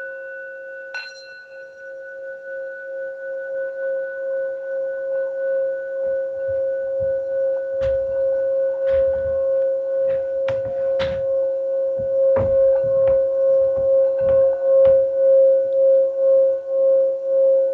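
Singing bowl sounding a steady ringing hum that slowly grows louder and pulses about twice a second. It is struck again about a second in, and scattered sharp knocks come from about six seconds on.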